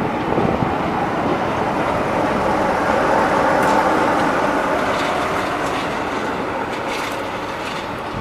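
Coaches of a departing steam-hauled railtour train rolling past, their wheels rumbling on the rails. The sound swells to a peak about halfway through, then slowly fades, with a few light clicks near the end.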